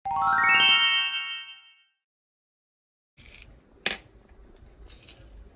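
A quick rising run of bright chime notes that rings out and fades within about two seconds. After a short gap comes faint room sound with one sharp click near the end.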